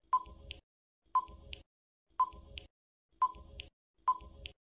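Quiz countdown timer sound effect ticking five times, once a second, each tick a short ringing tone followed by a fainter click.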